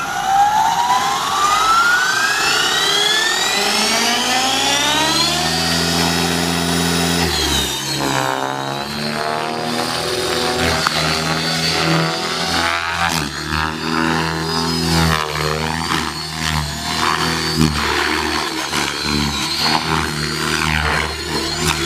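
Align T-Rex 600E electric RC helicopter spooling up, its motor whine and rotor tone rising steadily in pitch over about the first seven seconds. The rotor and motor then run on at speed, wavering in pitch and loudness as it flies.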